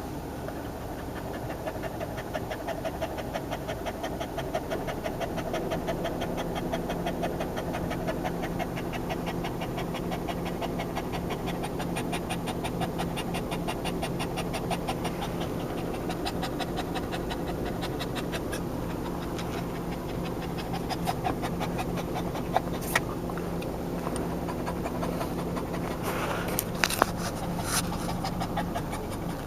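Boston Terrier panting fast and evenly, hard breathing from tiredness after running and play.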